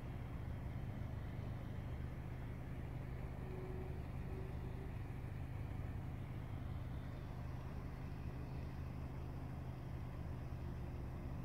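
Steady low engine rumble with an even hiss over it.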